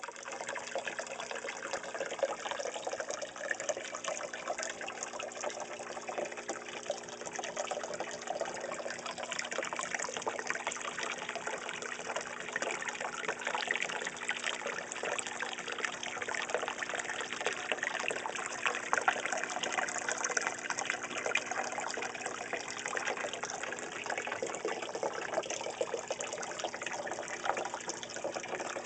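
Water pouring and splashing steadily into a pond, with a continuous trickling rush and a faint low hum underneath.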